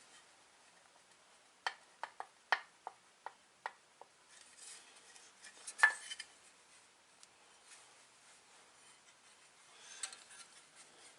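Small metal chainsaw kit parts clicking and clinking as they are handled on a bench: a quick run of light clicks in the first few seconds, one sharper clink about six seconds in, and faint rustling.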